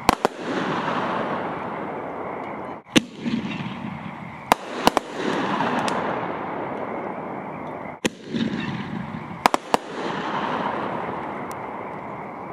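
Aerial firework shells going off: sharp bangs in groups of one to three every few seconds, each group followed by a long noisy tail that fades away over a couple of seconds.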